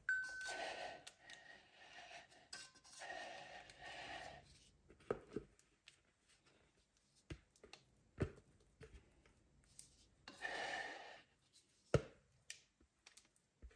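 Batter being scraped from a ceramic bowl into a metal bundt pan with a silicone spatula: three faint stretches of soft scraping, with several sharp taps and knocks of the spatula and bowl in between.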